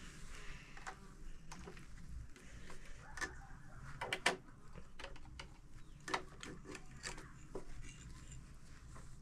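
Scattered light mechanical clicks and knocks from a portable electric sewing machine as fabric is worked through it. The clicks come irregularly, a second or so apart, with no steady run of stitching.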